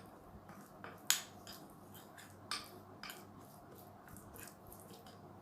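A spoon clicking and tapping against its dish while a mixture of ground nigella seed, ginger and sesame oil is stirred, with a sharper tap about a second in and another about two and a half seconds in.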